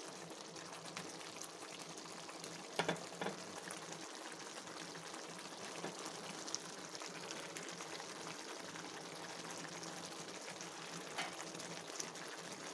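Beef apritada sauce simmering in a pan, a steady bubbling and hissing. Two short sharp clicks about three seconds in, and a fainter pair near the end.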